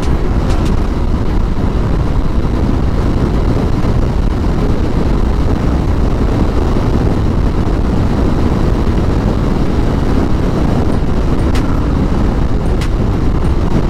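Steady wind rush on a GoPro's built-in mic while riding a Motorstar Easyride 150N scooter at speed, with the scooter's engine running underneath. A few sharp clicks come near the end.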